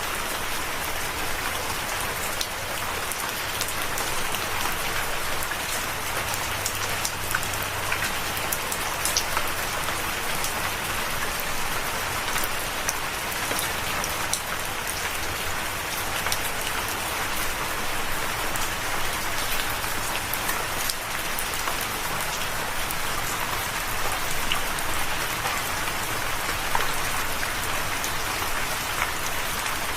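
Steady rain, a continuous even hiss with many individual drops ticking and pattering on a surface.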